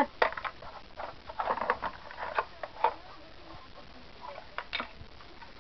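Plastic toy tools clicking and knocking against each other as a child handles them, in short irregular taps.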